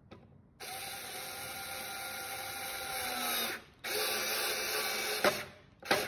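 Small cordless electric drill-driver running in two steady stretches as it drives screws through metal drawer runners into particleboard, with a sharp click as the second run ends.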